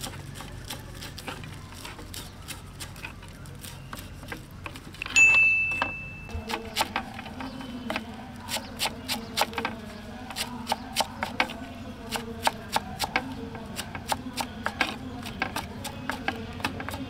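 Knife chopping fresh herbs on a wooden block: light cuts through curry leaves, then steady chops through a heap of coriander, about two to three a second. About five seconds in, a single loud clink rings briefly.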